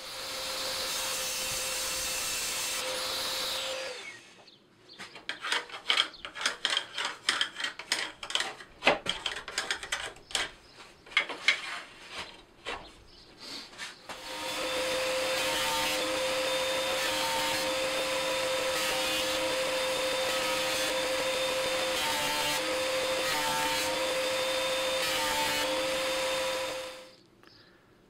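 Table saw running and ripping thin strips of softwood, a steady motor hum with the cut. In between, about ten seconds of scattered knocks and clicks of wood being handled on the saw, then a long steady run of the saw again with small regular dips as it cuts.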